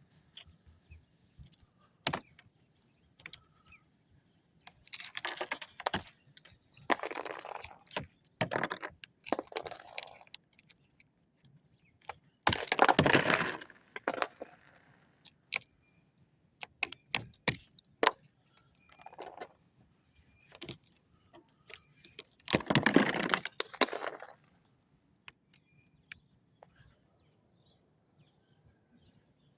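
Thick ice being cracked and broken apart by hand: scattered sharp cracks and clinks, with several longer crunching bursts, the loudest about halfway through and again about three-quarters of the way in.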